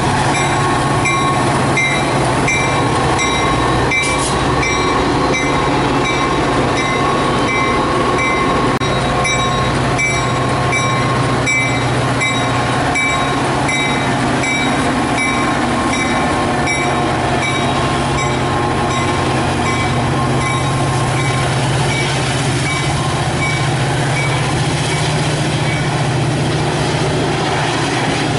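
Metra diesel commuter locomotive and its bi-level gallery coaches passing close by at speed: a steady low engine drone with the wheels clicking rhythmically over the rails, about two clicks a second, thinning out near the end.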